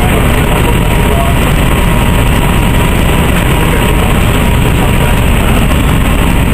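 Orion V CNG transit bus heard from inside the cabin, its Detroit Diesel Series 50G natural-gas engine idling with a steady, loud low rumble.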